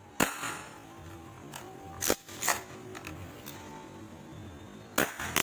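Spring-powered airsoft pistol being shot: a series of sharp snaps, one just after the start, two about half a second apart around two seconds in, and two close together near the end.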